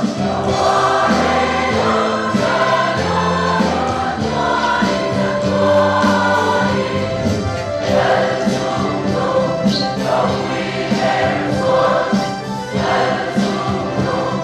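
Church choir singing a hymn together, with instrumental accompaniment underneath, continuous and full-voiced.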